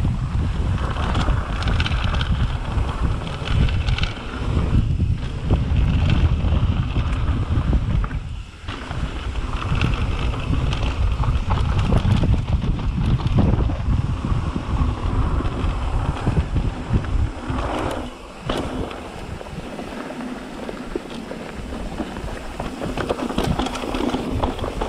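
Wind buffeting the action camera's microphone as a mountain bike rolls fast down a dry dirt trail. Tyres crunch over loose dirt and rocks, and the bike knocks and rattles over bumps. The rumble drops noticeably about three-quarters of the way through.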